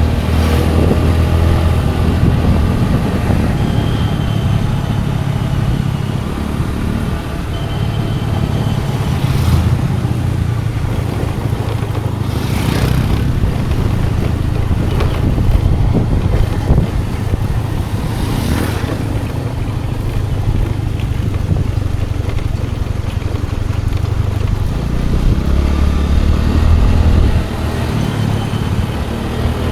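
Scooter engine running while under way, its low note rising and falling with the throttle, over steady road and wind noise.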